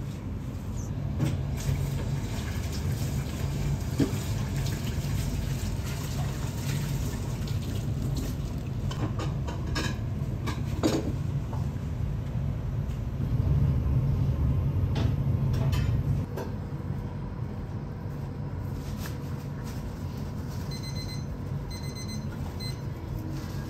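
Restaurant room tone: a steady low hum with scattered light clinks of tableware, louder for a couple of seconds in the middle. Near the end a chilled drink is poured from a tin pitcher into a tin cup.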